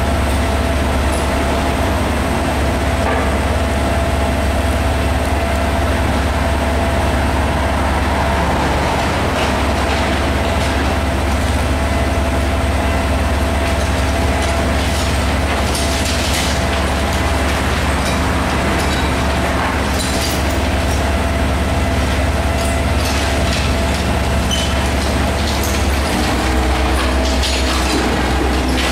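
Mobile crane's diesel engine running steadily close by, with scattered knocks and clatter of demolition rubble. About three seconds before the end the engine note shifts.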